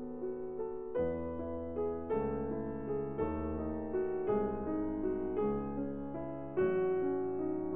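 Background piano music, a new chord struck about once a second.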